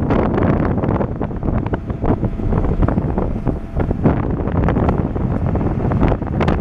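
Wind buffeting the microphone aboard a moving boat: a loud, irregular gusting noise that lulls and picks up several times.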